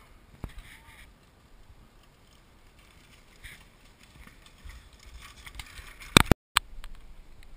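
A downhill mountain bike coming down a rocky dirt trail, its tyres and frame clattering faintly over the stones as it approaches. Two sharp, loud pops come about six seconds in.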